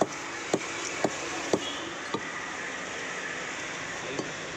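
Heavy curved butcher's cleaver chopping goat meat on a wooden chopping block: about five sharp chops, one every half second, then a pause of about two seconds with only steady background noise.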